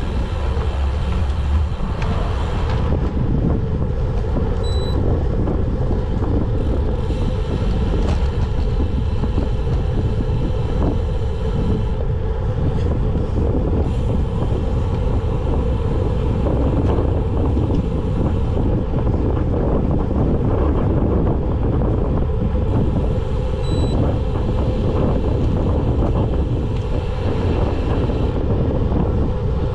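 Steady wind rushing over the microphone of a camera on a road bike coasting downhill at speed. Two short high beeps sound about 5 seconds in and again about 24 seconds in.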